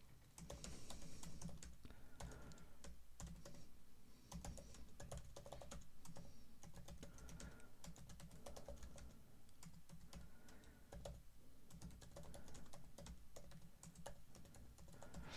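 Typing on a computer keyboard: faint, irregular runs of key clicks in quick flurries with brief pauses between words.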